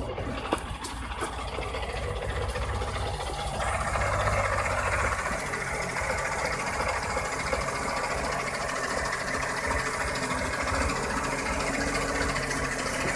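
Engine of a log-laden GAZ-66 cab-over truck running steadily as it moves slowly toward the listener, the engine sound growing louder about four seconds in.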